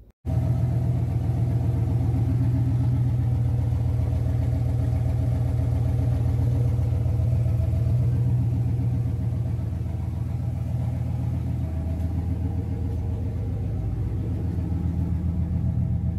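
Freshly rebuilt, turbocharged 306 Ford small-block V8 idling steadily at about 870 rpm. It runs a little quieter from about ten seconds in.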